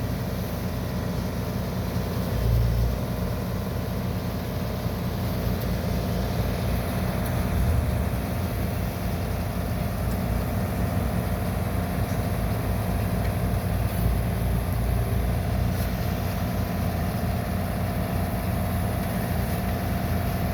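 Bobcat compact excavator's diesel engine running steadily, with a brief louder low swell twice as the machine works.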